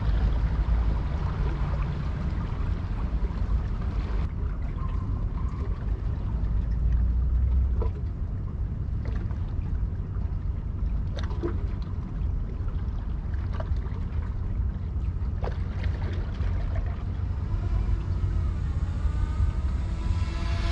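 Steady low rumble of a large ship under way, with water noise and a few faint ticks.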